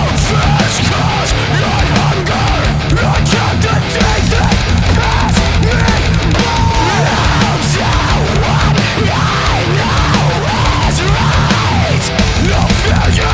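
Loud heavy metal music with guitar.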